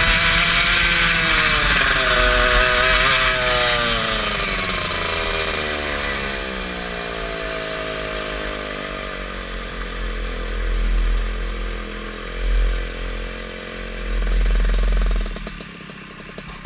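Go-kart engine running at high revs, then the revs falling steadily over several seconds as the kart slows down, followed by low uneven rumbles as it rolls slowly at low revs.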